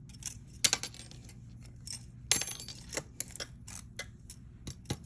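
Metal costume jewelry pieces clinking together and clicking against a magnet as they are tested for magnetism: a dozen or so irregular sharp clinks, the loudest about two seconds in. The pieces prove magnetic, a sign of base metal rather than gold or silver.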